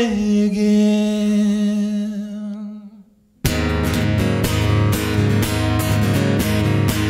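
A man's held sung note wavers and fades out over about three seconds. After a short silence, rhythmic acoustic guitar strumming starts abruptly, with sharp percussive strokes.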